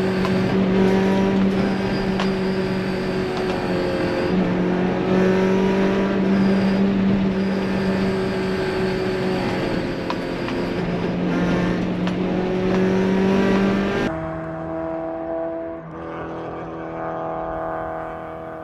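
Honda B16A2 four-cylinder engine of an EK Civic hatchback, breathing through an Integra Type R header and a Fujitsubo muffler, running under way at a steady, held note with small shifts in pitch, over road noise. About fourteen seconds in the sound suddenly becomes quieter with a different engine note.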